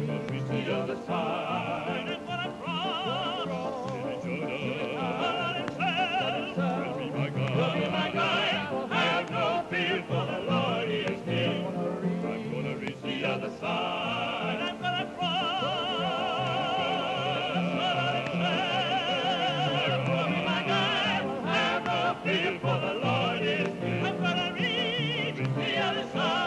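Gospel singing by trained voices in an operatic style, with a wide vibrato, over accompanying music.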